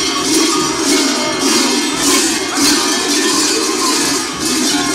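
Many heavy cowbells on the backs of sheepskin-clad Sardinian carnival masks jangling and clanging together in a rhythmic beat, about one surge every half second to second, as the wearers move and shake them.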